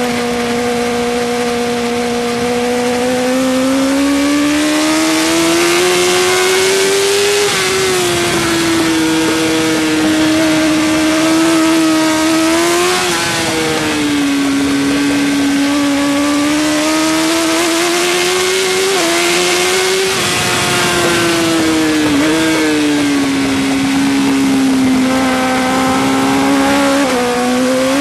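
Suzuki GSX-R1000 K5 superbike's inline-four engine at race speed, heard from on board. Its note climbs steadily under hard acceleration, drops quickly at gear changes and falls away more slowly when the bike slows for corners, several times over.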